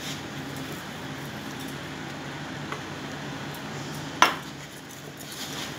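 A hand mixing and kneading crumbly gram-flour and rice-flour dough in a bowl, making soft rubbing and squishing sounds. About four seconds in there is one sharp clink against the bowl, the loudest sound.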